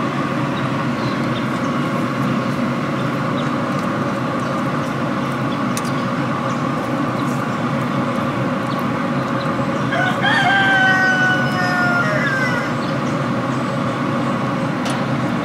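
A rooster crows once, about ten seconds in: a single long call that slides slightly down in pitch, over a steady background noise.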